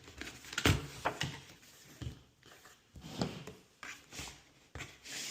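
Paper and cardboard packaging being handled and opened by hand: scattered soft knocks, scrapes and rustles, the loudest knock about a second in.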